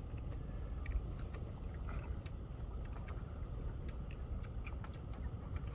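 A person chewing food with mouth closed, giving small scattered clicks and smacks, over a steady low rumble of wind on the microphone.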